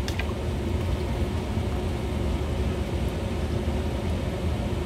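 Steady low rumble with a faint, even hum over it, and a light click just after the start.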